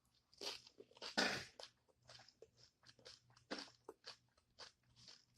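Close-miked eating of a crunchy taco salad with tortilla chips. There are two louder crunching bites in the first second or so, then a run of softer, irregular chewing crunches.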